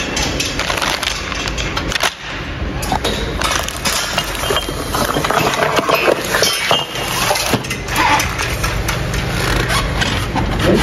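Plastic-bagged parts in a cardboard box being handled, a dense run of crinkling and crackling with small clinks, over a steady low mechanical hum.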